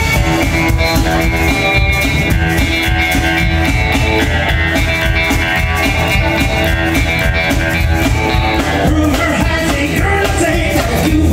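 Live rock and roll band playing without a break: electric guitar carrying the lead over a steady drum kit beat and bass.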